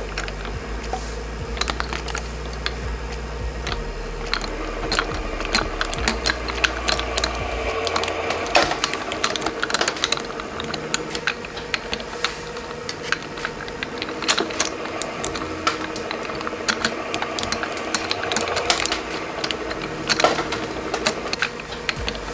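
Dual-shaft shredder running: a steady motor hum with dense, irregular clicking and clattering from its turning steel cutters. A low rumble under it drops away about eight seconds in.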